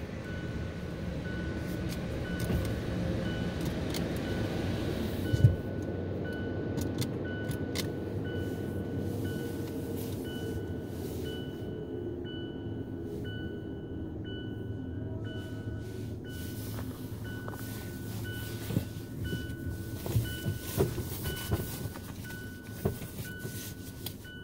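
Steady low rumble heard from inside a car entering a tunnel car wash, with one sharp thump about five seconds in and scattered knocks near the end. From the thump on, an electronic warning chime beeps evenly, a little over once a second.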